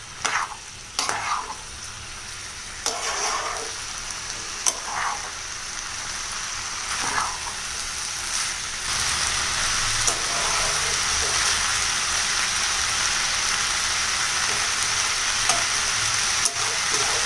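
Soaked basmati rice and vegetables sizzling in oil in a kadai over a high gas flame, with a spatula scraping and stirring a few times in the first seven seconds. The sizzle then grows louder and runs steadily from about eight seconds in.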